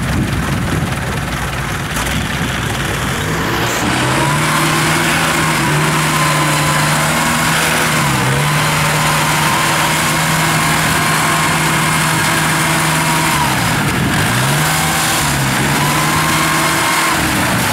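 Small diesel engine of a tracked rice-hauling machine running under load as it crawls through deep paddy mud. The note steadies and gets louder about four seconds in, then sags in pitch and recovers twice, a little under halfway and again about three-quarters through.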